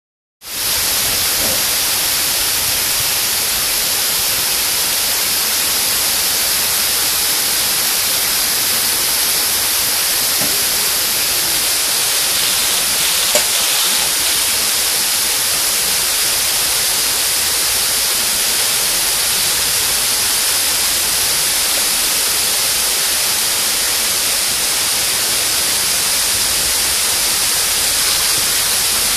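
Waterfall: water falling in a steady, loud, hissing rush, heaviest in the high range and unchanging throughout.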